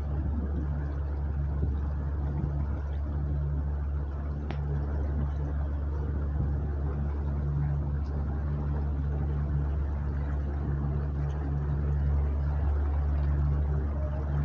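Tour boat's motor running steadily as it cruises along the river, a constant low hum with water noise over it.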